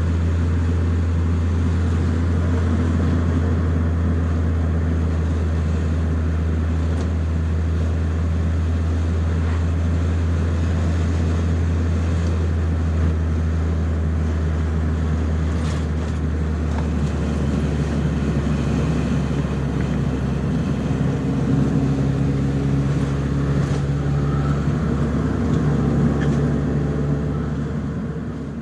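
Nissan 200SX S14a's turbocharged SR20DET four-cylinder engine running steadily at low revs, with no hard revving; the sound fades out near the end.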